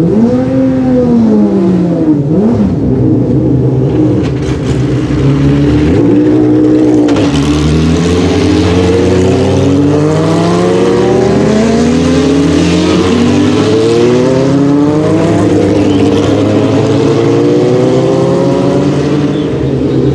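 Dallara GP3 race cars' V6 engines being revved: sharp blips that rise and fall over the first few seconds, then from about seven seconds a run of rising pitches as the engine pulls up through the gears, with a steady engine hum underneath.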